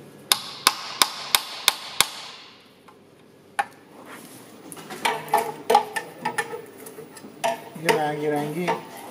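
Hand tools striking and clinking on the steel oil pan of a Subaru EJ20 engine being dismantled: six sharp metallic taps about three a second, then scattered clinks of metal on metal.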